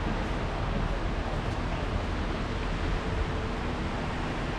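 Steady outdoor background noise: a rushing hiss over a low rumble.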